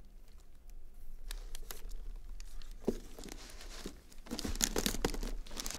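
A wrapped shoebox being handled and turned over: wrapping paper and gold mesh ribbon crinkling, with small cardboard knocks. The rustling is busiest a little after four seconds in.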